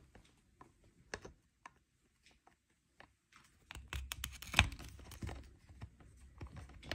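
Scattered small plastic clicks and creaks as an Oral-B iO toothbrush handle is twisted against its charger base to force the bottom cap open; the clicking becomes busier, with low handling rumble, about four seconds in.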